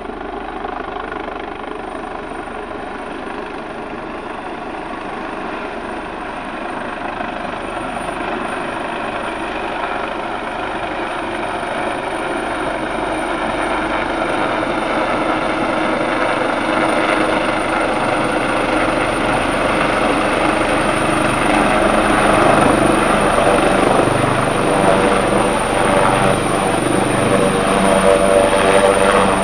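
Search-and-rescue helicopter rotor and engine noise, growing steadily louder as it comes in close and lands, with a steady high whine on top.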